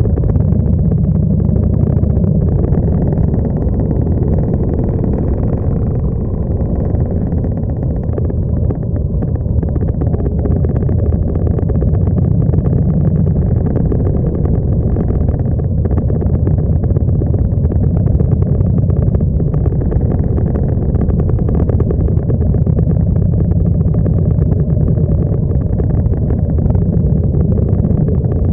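Motorcycle engines running steadily at low speed in a slow, close-packed group ride. The sound is picked up from on one of the bikes, so it is a deep, continuous engine sound with no breaks.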